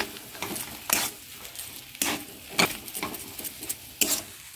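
Metal spatula stirring a thick fish-and-potato filling in a metal kadai, knocking and scraping against the pan five times, about once a second.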